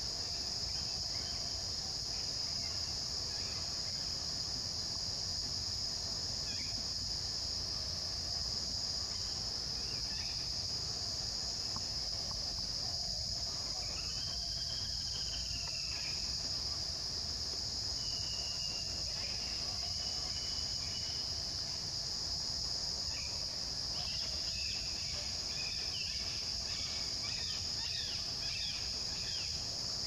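Steady high-pitched insect chorus, with a few scattered bird calls: one arching call around the middle, short whistles soon after, and a run of quick chirps near the end.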